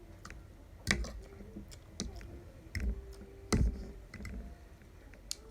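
Eating noises from a bowl of instant noodles: scattered sharp clicks and four louder knocks spaced about a second apart.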